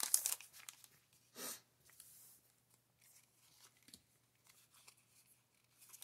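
Foil booster-pack wrapper crinkling at the start, then a short rustling swish about a second and a half in, followed by faint handling of a stack of trading cards.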